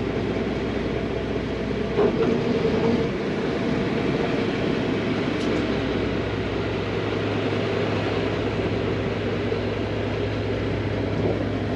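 Charter boat's engine running steadily at low speed while the boat is brought alongside the dock, briefly louder about two seconds in.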